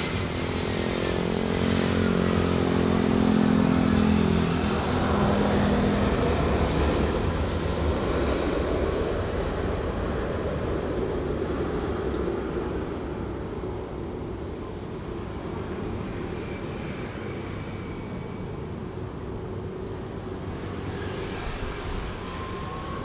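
Jet airliner passing close by. Its engines' tones and whine drop in pitch as it goes past, loudest about four seconds in, then the roar fades slowly into a long rumble.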